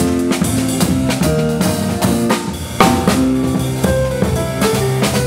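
A piano trio playing: Nord electric stage piano with chords and melody, an upright double bass holding low notes, and a drum kit keeping time with bass drum, snare and rimshot hits.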